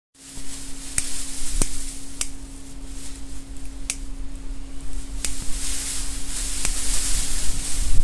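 Gusty wind noise on the microphone, a buffeting rumble and hiss that grows stronger near the end, over a steady low hum. Several sharp clicks are scattered through it.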